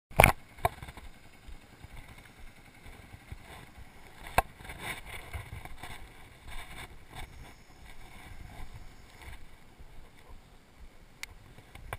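A few sharp knocks from the camera being handled, two right at the start (the first the loudest), one about four and a half seconds in and a small one near the end, over a low noisy outdoor background.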